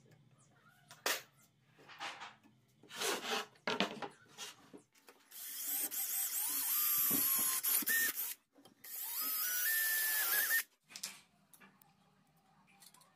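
A few knocks and clicks from bar clamps being set, then a cordless drill boring through an aluminium angle into plywood in two runs with a brief stop between. Its motor whine rises in pitch as it spins up.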